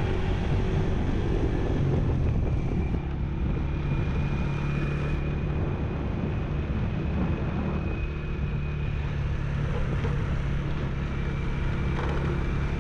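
Motorbike engine running steadily at cruising speed, with wind rushing over the microphone.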